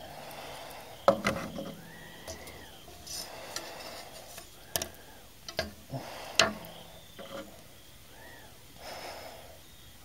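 A metal spatula and a burnt mSATA SSD circuit board knocking and scraping against wooden boards as the board is slid off onto the wood. There is a sharp knock about a second in and several more around the middle. A faint rising-and-falling call repeats every couple of seconds in the background.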